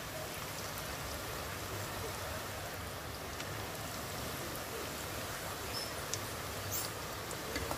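Hot oil sizzling and bubbling steadily in an aluminium kadai around freshly pressed ribbon pakoda dough. The strong sizzle means the dough is still frying; it is lifted out once the sizzling dies down.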